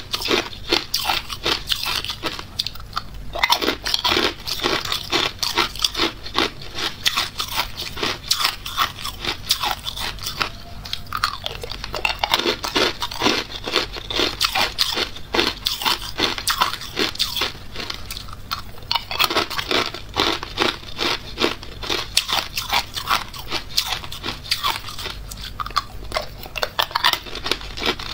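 Hard, clear ice cubes being bitten and crunched between the teeth: dense runs of sharp cracks, with a few short pauses between mouthfuls.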